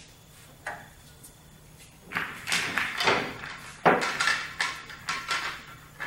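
Pool balls clacking together as they are gathered by hand at the table's rail: a run of hard knocks starting about two seconds in, the loudest just before four seconds.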